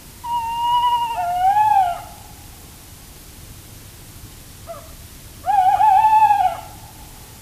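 Tawny owl calling twice with long, wavering notes. The first call lasts about two seconds and ends in a lower, bending note. The second comes about five and a half seconds in, with a faint short note just before it.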